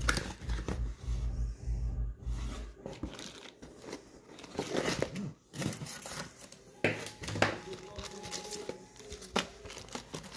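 Cardboard box and its packaging being handled: irregular rustling, crinkling and scraping as hands rummage through the flaps and contents.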